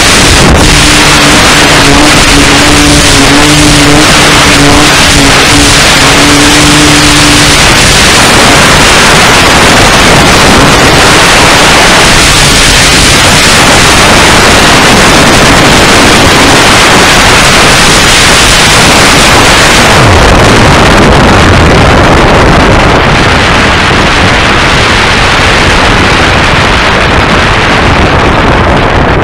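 Loud, overloaded rush of wind and motor noise picked up by a camera mounted on the fuselage of a control-line model airplane in flight. A steady tone runs through the first several seconds, and the highest hiss drops away about two-thirds of the way through.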